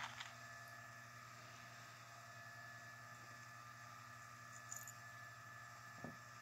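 Near silence: steady faint electrical hum of room tone, with a couple of faint small clicks.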